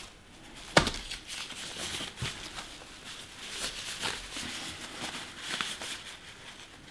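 Hands rustling a white packing sheet and handling parts inside a cardboard box, a sharp click about a second in, then soft scattered rustles and light ticks.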